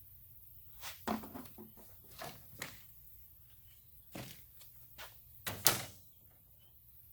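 Electrical parts being handled and set down on a steel panel: a string of irregular light knocks and clunks, the loudest a pair of sharper knocks near the end.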